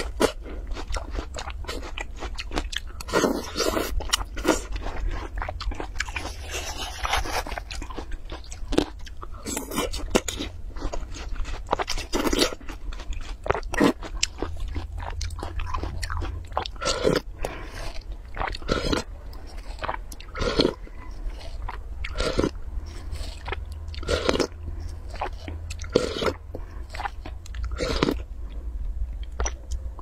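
Close-miked eating of juicy watermelon flesh off a metal spoon: wet crunching bites and chewing in repeated mouthfuls, coming about every second or two in the second half.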